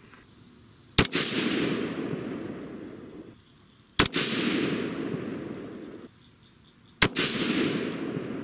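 Three rifle shots about three seconds apart from an AR-15 in 22 ARC with an 18-inch barrel and a three-port muzzle brake, firing 88-grain factory loads. Each sharp report is followed by a trailing echo that dies away over about two seconds.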